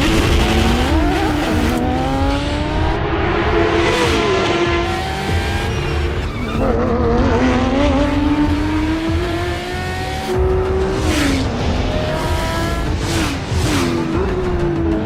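Racing car engine at full throttle, its pitch climbing and then dropping back again and again as it shifts up and down through the gears.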